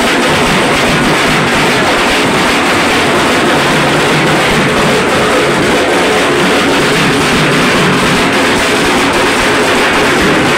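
Loud, fast, unbroken dhak drumming, the Chhau dance accompaniment.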